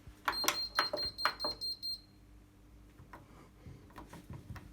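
Indesit washing machine control panel beeping: a quick run of short, high beeps at one pitch with clicks as the programme selector is turned, lasting about two seconds, then a few soft clicks over a low steady hum.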